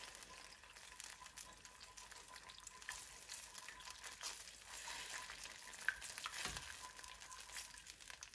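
Soy sauce, ketchup and garlic oil glaze sizzling faintly in a non-stick wok as a silicone spatula stirs it round, with one sharp click about six seconds in.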